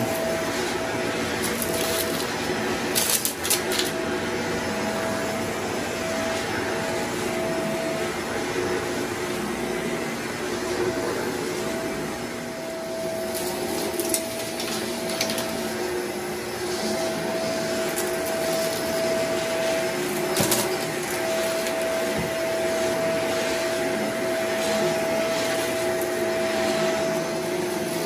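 Upright vacuum cleaner running steadily on carpet, a constant whine over its motor noise. Now and then there are sharp clicks and crackles as bits of debris are sucked up.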